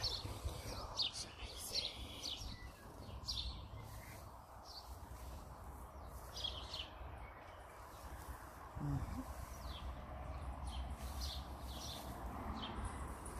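Small birds chirping, with short, high chirps coming every second or so, over a low rumble.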